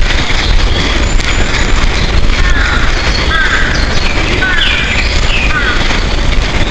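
Small birds chirping repeatedly in short, quick falling notes, several overlapping, over a loud steady low rumble.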